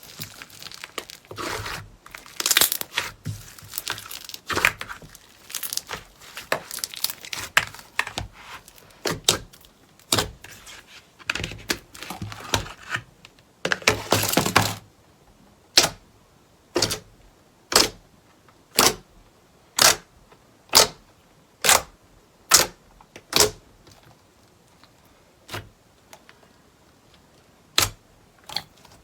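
Slime being squeezed and pressed by hand, with dense, irregular crackling and popping. About halfway through it gives way to sharp single pops about one a second, then a few scattered ones near the end.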